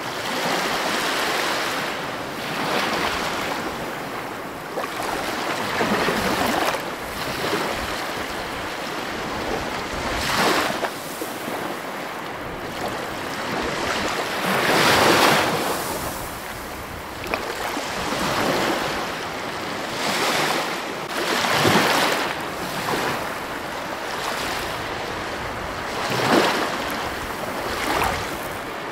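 Ocean surf: waves breaking and washing in, with a steady rush that swells into a louder surge every few seconds.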